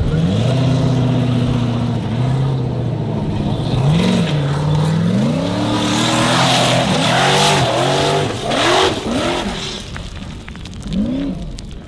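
Formula offroad buggy's engine revving hard under full throttle, pitch rising and falling in repeated quick surges as the buggy scrabbles up a steep dirt hillside. From about the middle, a rough rush of tyres flinging dirt and stones joins the engine.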